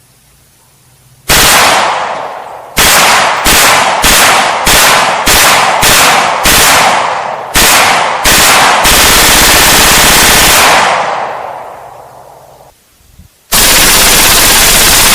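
FN P90 submachine gun firing full-auto in 5.7×28mm: a burst about a second in, then a string of about ten short bursts a little over half a second apart. A long burst of about two seconds follows and trails off in a long echo, and after a brief pause another long sustained burst runs on near the end.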